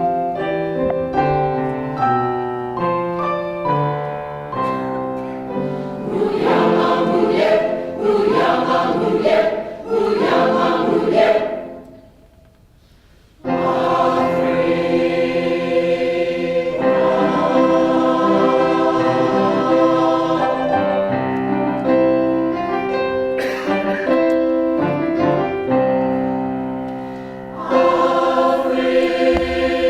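Mixed community choir singing in harmony, with changing chords in the first part. It breaks off for about a second and a half near the middle, then comes back in on long held chords.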